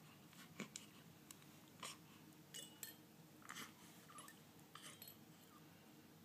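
Near silence: room tone with a dozen or so faint, short rustles and clicks scattered through it.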